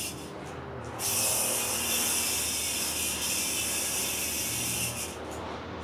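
A yo-yo spinning on its string while it is worked into a string mount, a steady high whirring hiss. It starts about a second in with the throw and stops about a second before the end, when the yo-yo is bound back up.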